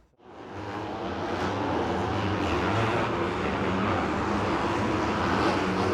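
Dirt bike engines running on a supercross track, a steady mixed engine noise that fades in over about the first second.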